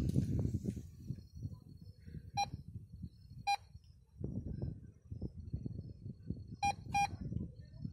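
Metal detector giving short electronic beeps as its search coil is swept over the soil, each beep signalling metal under the coil. There are four beeps in all, the last two close together near the end, over a low rustle.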